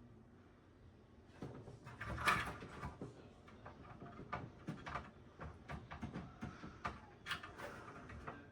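Handling noise from working on computer parts: a run of small clicks, knocks and scrapes that starts about a second and a half in, the loudest about two seconds in.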